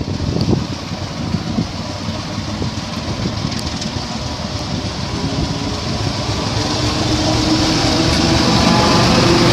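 ČSD class T478.1 'Bardotka' diesel locomotive with its six-cylinder diesel engine running as it pulls a passenger train out of the station. The sound grows steadily louder as the locomotive comes up close, with the engine's tones standing out in the second half.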